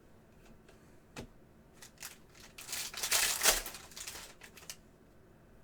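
Trading cards and their packaging being handled: a click about a second in, a few light ticks, then about two seconds of rustling and sliding.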